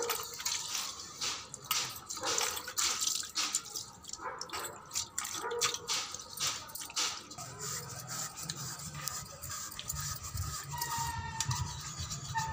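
Wet hands scrubbing copper vessels with salt and water: irregular rubbing and splashing strokes, first on a copper plate, then on a small copper tumbler.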